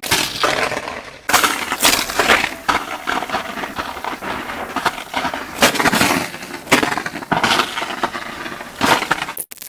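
A rapid-fire chain of short sound effects from a free sound-effect library, played back ten times faster, so that one clip runs straight into the next: a dense stream of sudden impacts and crashes.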